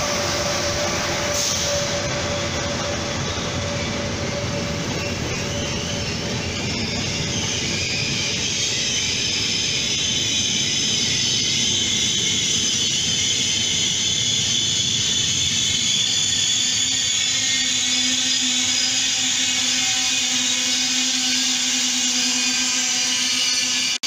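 Electric-hauled passenger train rolling past close by: a steady loud rumble of locomotive and coaches on the rails. From about seven seconds in, a high squeal rides over the rumble.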